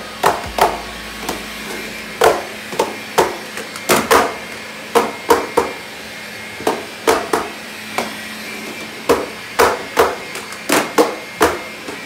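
Makita cordless stick vacuum running with a faint steady whine, while hard knocks ring out on the wooden stairs as its nozzle is set down and bumped against tread after tread. The knocks come at uneven spacing, often in quick pairs, about two a second.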